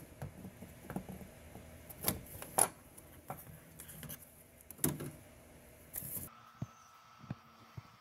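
Sharp plastic clicks and knocks of a wiring connector being unlatched and pulled off a mass air flow sensor, a handful of separate clicks over the first five seconds, then only a few faint ticks.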